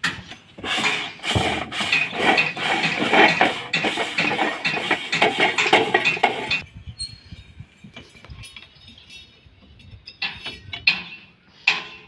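Rubbing and scrubbing as a cloth is worked over the air-intake pre-cleaner of a JCB 3DX backhoe loader. After about six and a half seconds it gives way to quieter, scattered clicks and knocks as the pre-cleaner's plastic bowl and cap are handled and twisted loose.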